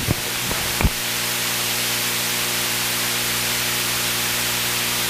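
Steady electrical hiss with a low mains hum on the broadcast audio line, with two faint clicks in the first second.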